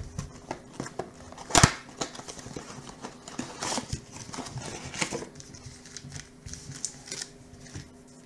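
Cardboard blaster box of trading cards being handled and opened by hand: scattered clicks and rustles of the cardboard flap and the packs inside, with one sharp knock about a second and a half in.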